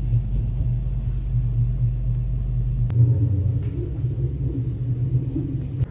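Steady low rumble of a train running, heard from inside the passenger carriage. The background changes abruptly about three seconds in, and the rumble carries on.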